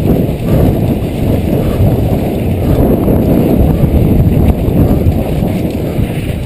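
Wind buffeting a rider-mounted camera's microphone, mixed with a downhill mountain bike's tyres and frame rattling over a dry dirt trail at speed. The noise is loud, choppy and steady.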